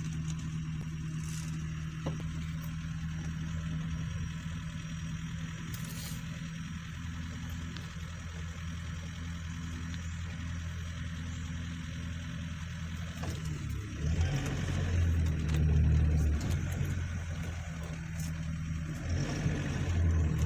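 Safari jeep's engine running with a steady low hum, then revving and louder from about two-thirds of the way in as the jeep moves forward, with another rise near the end.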